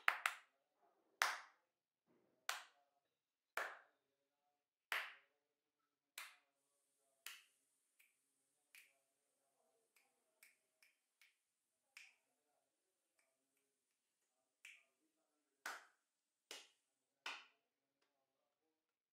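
Single hand claps aimed at a transistor clap-switch circuit to set it off. They come about once a second at first, then fainter and further apart with a few small taps between, then four more claps near the end.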